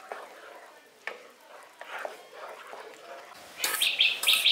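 Wooden spatula stirring thick milk and milk powder in a nonstick kadai, with soft scrapes and a few light taps against the pan, under faint background voices. About three and a half seconds in, a loud run of short, sharp, high-pitched sounds begins.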